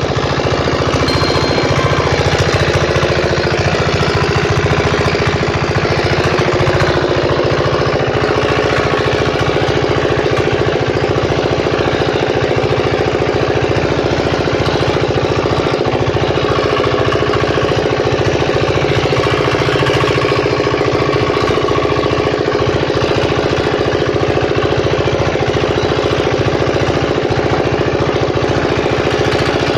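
Single-cylinder Z170F diesel engine driving a generator, running steadily at an even speed with the rapid regular beat of its firing strokes.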